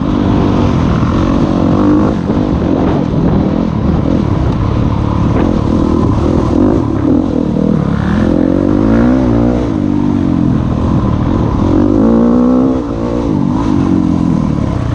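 Enduro dirt bike engine under way on a dirt trail, revving up and easing off over and over as the rider works the throttle, with a brief drop in loudness near the end.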